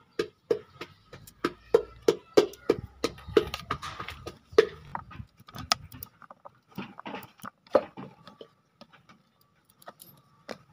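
Knife cutting a hand-held vegetable into chunks that drop onto a steel plate: a run of irregular sharp clicks, each with a short metallic ring, thinning out over the last few seconds.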